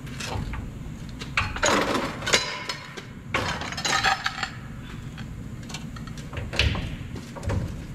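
Irregular metal clanks and scrapes with brief ringing as a Toyota Tundra's front differential is worked loose from its mounts and lowered, loudest about two and four seconds in.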